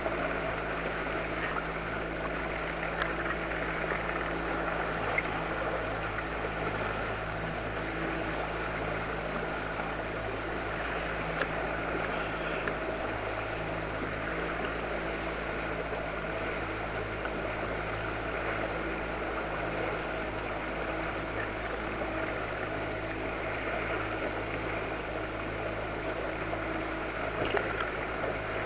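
Outboard motor on a small inflatable boat running steadily at low trolling speed, with water rushing along the hull. A few light clicks stand out above the hum.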